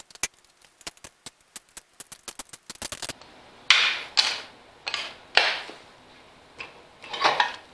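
Hand ratchet clicking rapidly as it is cranked on a torque multiplier, the clicks speeding up over about three seconds. Then several louder, short metallic scraping and clunking sounds as the loosened steering parts are worked.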